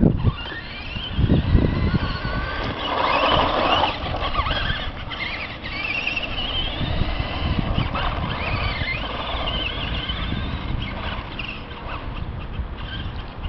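Traxxas Stampede RC monster truck's motor whining, its pitch rising and falling over and over as the truck speeds up and slows down. Low gusts of rumble come near the start and about a second and a half in.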